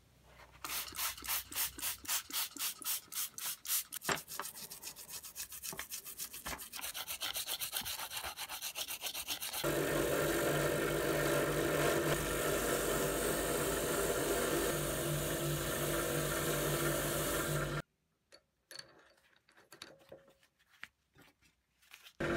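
Rapid, evenly spaced rubbing strokes on a small metal bolt, several a second. About ten seconds in, a bench drill press starts running steadily with a wire wheel in its chuck as a bolt is held against the spinning wheel to clean it. Near the end the sound cuts off suddenly, leaving only a few faint clicks.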